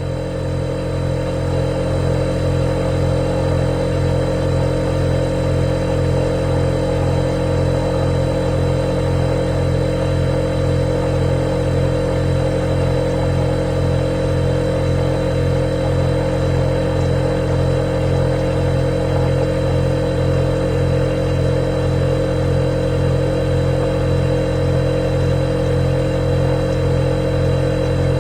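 Refrigerator running: a steady low hum with a faint higher whine, swelling over the first couple of seconds and then holding even.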